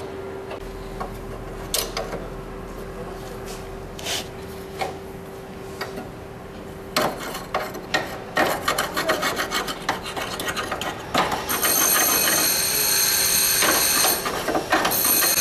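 Hand wrench working a bolt on the underside of a van: scattered metal clicks at first, then rapid rasping and clicking from about halfway. The last few seconds hold a loud, continuous, high-pitched scraping.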